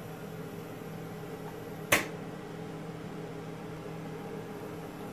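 Robotic sealant-dispensing cell running: a steady machine hum with several held tones, and one sharp click about two seconds in.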